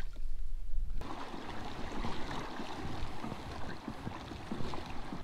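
A low rumble for about the first second, then steady trickling and lapping of water against the kayak.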